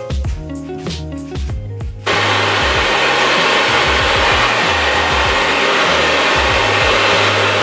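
Background music with a steady beat, then about two seconds in a Ceramic Turbo Red 2000 hand-held hair dryer switches on suddenly and runs steadily and loudly, the music faint beneath it.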